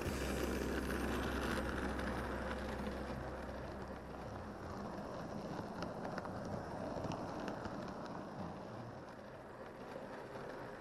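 H0-scale model train running on the layout's track: a steady rattle of wheels on the rails with faint clicks, slowly fading away.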